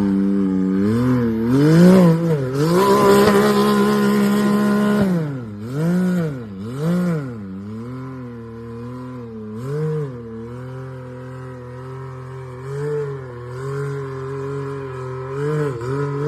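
Off-road vehicle engine revved: a few throttle blips, then held at high revs for a couple of seconds, then dropping back to a lower steady run with repeated short blips of the throttle.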